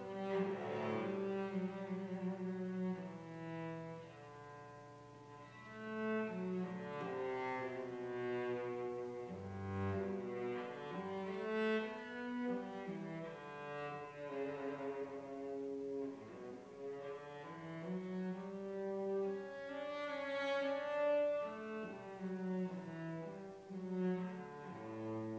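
Solo cello played with the bow: a slow melody of long held notes that move from one pitch to the next every second or two.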